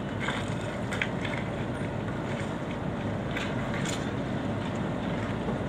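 Truck engine running as a load of wood chips pours out of the back of the trailer, a steady rushing with a few faint knocks.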